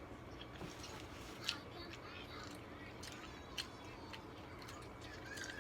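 Mukbang eating sounds: chewing and wet mouth noises, with sharp clicks, the loudest about a second and a half in and another about three and a half seconds in.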